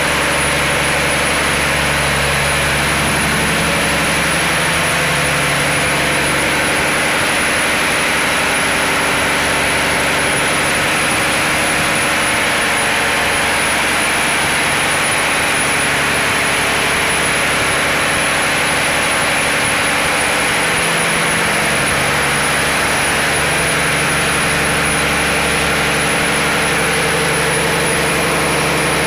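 Fishing boat's inboard diesel engine running steadily, heard up close inside the engine room, with a steady high whine above the engine.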